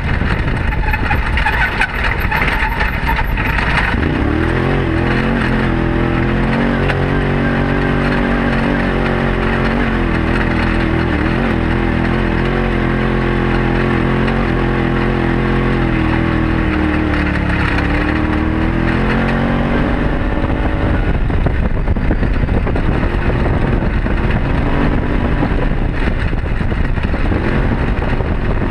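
Arctic Cat Wildcat side-by-side's engine running under load on a rocky uphill trail, heard from inside the open cab. Its pitch sags and then climbs back up about two-thirds of the way through, with a few shorter rises later. A broad rushing noise covers the first few seconds.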